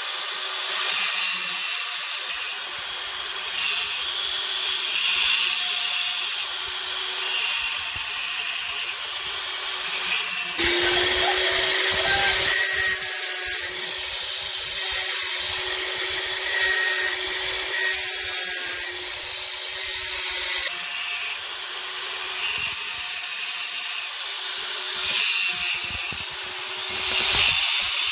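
A power tool grinding metal: a steady motor whine under a loud hissing rasp that swells and eases as the tool is pressed on and lifted.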